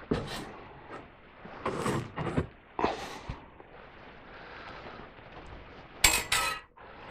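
Coiled steel bandsaw blades being handled and moved: a series of short knocks and rattles, the loudest about six seconds in.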